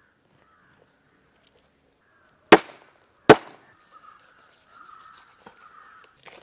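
Two loud, sharp knife chops, a little under a second apart, as the head of a large catla fish is cut off on a wooden board, followed by quieter cutting sounds.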